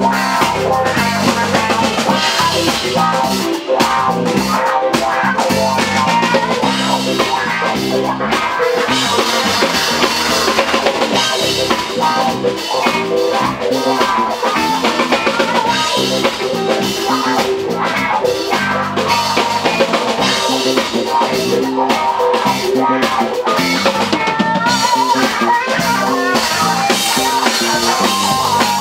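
A rock band playing live: a drum kit with snare and bass drum drives the beat under electric guitar and bass guitar.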